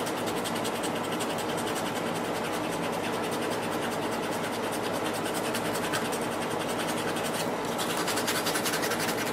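Wooden grip scales of a Belgian M1924 bayonet being worked by hand with an abrasive in fast, steady back-and-forth scraping strokes, smoothing off excess glue.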